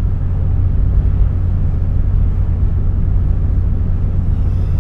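Vehicle driving on the road towing a boat, a steady low rumble of engine and road noise with no change in pace.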